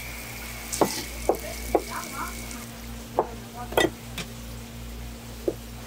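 Kitchen knife knocking on a wooden cutting board as a shucked abalone is cut: about six short, sharp knocks at irregular spacing, over a low steady hum.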